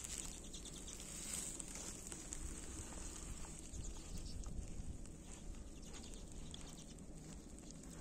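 A flock of common redpolls calling faintly from a birch tree: short, scattered call notes over a low, steady background rumble.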